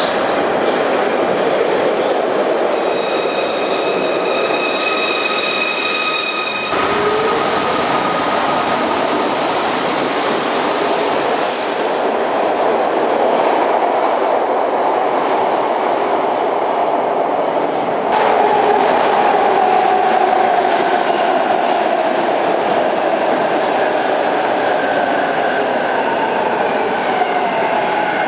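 Stainless-steel Broad Street Line subway cars (Kawasaki-built B-IV) arriving at and running past underground platforms, with steady running noise from wheels on rail. A few seconds in, a high, steady squeal rings over it and cuts off abruptly.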